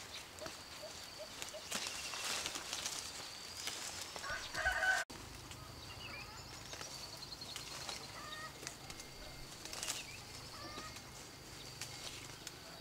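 Sapodilla branches and leaves rustling as fruit is picked by hand, with chickens clucking and small birds chirping around. The loudest call, a short clucking burst, comes about five seconds in.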